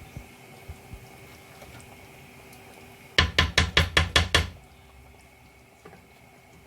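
A kitchen utensil rapped against a cooking pot about eight times in quick succession, a short loud burst of knocks about three seconds in.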